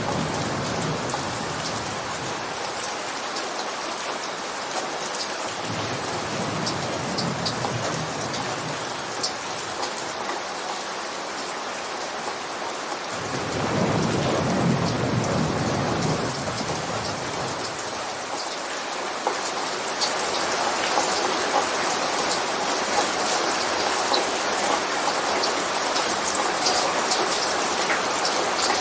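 Steady rain falling on a surface, an even hiss with scattered drop taps. Low rumbles swell up three times in the first half, and the rain grows a little louder and more pattering in the last third.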